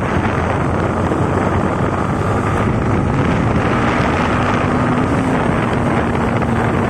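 Yamaha MT-15 single-cylinder motorcycle engine running at a steady speed on the move, mixed with heavy wind noise on the microphone.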